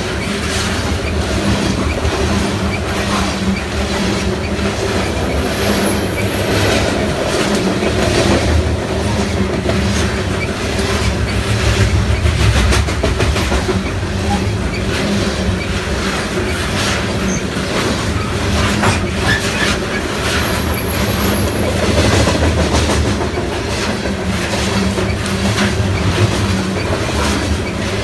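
Freight train of open-top gondola cars rolling past at close range: a steady rumble of steel wheels on rail, with repeated clicks as the wheels cross rail joints.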